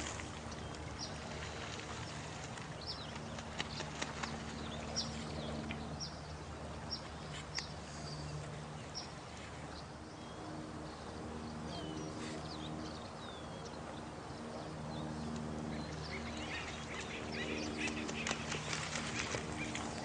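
Night nature soundscape: a steady wash of running water with short, high, falling chirps repeating about once a second. Low, drawn-out tones come and go under it, and a flurry of clicks and splashy ticks builds near the end.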